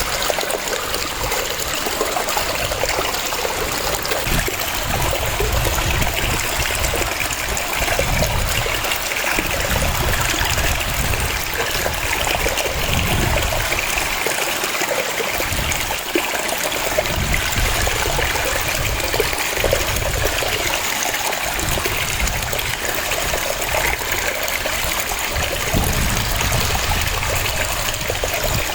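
A waterfall: water cascading and splashing in a steady rush, with a low rumble that swells and fades every few seconds.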